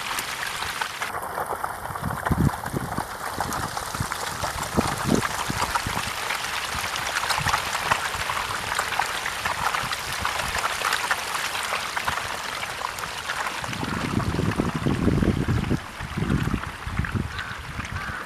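A packed crowd of hybrid magur catfish splashing and churning at the water surface as they feed, a steady watery crackle of many small splashes. A few low rumbles come in near the end.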